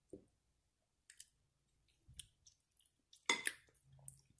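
Faint clicks of a metal fork against a glazed ceramic bowl as it moves through broth-soaked bread, with a louder brief clatter about three seconds in.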